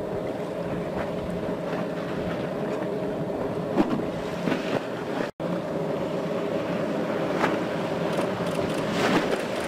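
Motorboat engines running steadily at high speed, with splashes of spray and hull slap over water. The sound drops out for an instant about halfway through.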